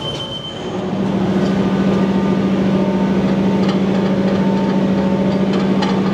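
Magneto timing synchronizer sounding steadily: a high steady tone cuts off and, about a second in, a steady low buzz takes over.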